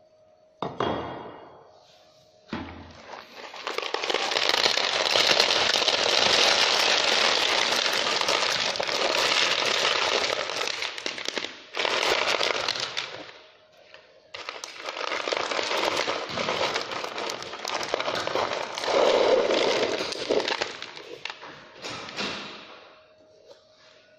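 About 5 kg of crushed stone poured from a plastic crate into a bait boat's hopper: a long rattling clatter of stones, in several pours with short breaks, as the hopper is loaded for a capacity test. Two short knocks come before the pouring starts.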